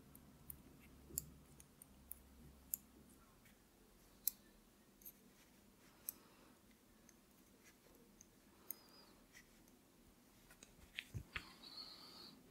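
Knitting needles ticking faintly and irregularly as a row of knit stitches is worked in cotton yarn, a dozen or so small clicks. About eleven seconds in, a soft thump and a short rustle as the knitted fabric is handled.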